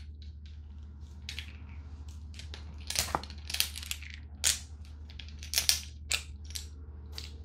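A small vape cartridge's packaging and plastic vial being handled and opened by hand: irregular clicks, taps and light crackles, several a second at times, over a steady low hum.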